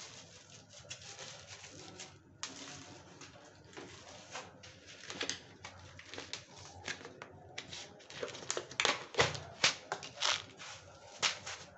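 Peanuts roasting in a hot wok, crackling and popping in irregular sharp clicks. The clicks grow louder and more frequent about eight seconds in.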